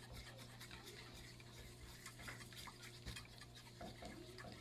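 Chopsticks stirring beaten egg in a small frying pan, the tips scraping and clicking quickly and irregularly against the pan as the egg is scrambled into fine curds. Faint, with a steady low hum beneath.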